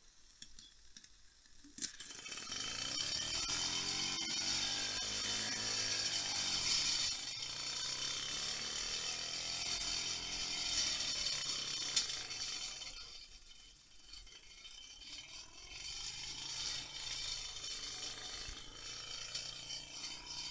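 Lutz Hielscher steam gondola model running under steam: a steady hiss with a whirring that rises and falls in pitch, over constant metallic rattling and clinking. The clatter comes from the loosely fixed pillars, which the moving gondola keeps banging into.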